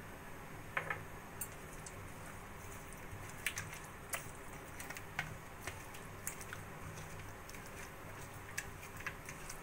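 Hand rubbing salt and turmeric into raw rohu fish pieces on a steel plate: soft wet squishing with scattered light clicks and taps, over a faint steady low hum.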